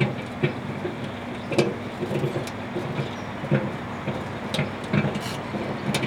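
Microwave oven running with a steady electrical hum while steel wool arcs inside it, crackling and snapping irregularly with a few louder pops.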